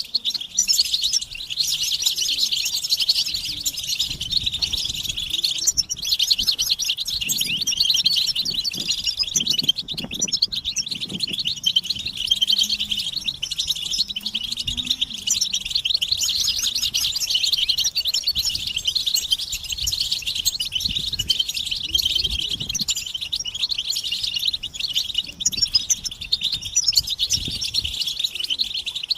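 A group of European goldfinches twittering and trilling at once, a dense, unbroken stream of rapid chirps: the excited chatter and mating calls used to stir male goldfinches into song.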